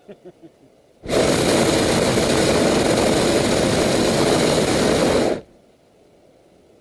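Hot air balloon's propane burner firing in one loud blast of about four seconds, starting about a second in and cutting off sharply.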